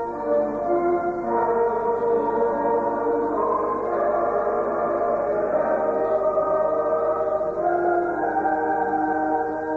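Slow, solemn music with long held chords that change every second or two.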